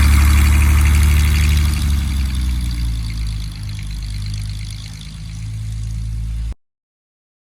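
Single-engine Cessna light aircraft's piston engine and propeller running at high power, as for a takeoff run. It is loudest at first, eases off after about two seconds, then cuts off suddenly about six and a half seconds in.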